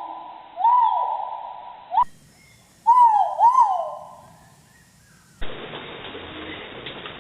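A pheasant calling loudly: short notes that rise and fall, each trailing off in an echo, about four in the first four seconds, two of them close together near the middle. From about five and a half seconds in, only a steady hiss remains.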